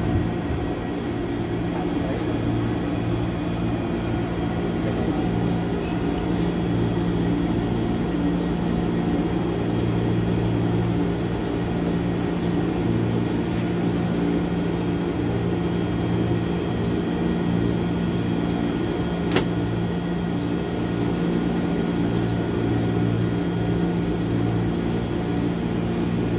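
Steady hum inside a KRL Commuter Line electric train carriage, with several steady tones held throughout and a single sharp click about two-thirds of the way through.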